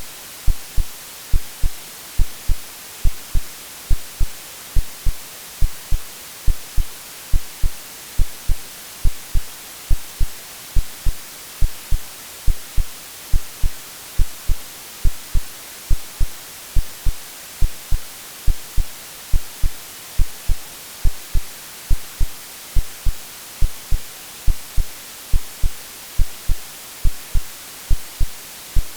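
Synthetic heartbeat over steady white noise. A paired lub-dub thump repeats evenly, a little faster than once a second, under a constant bright hiss.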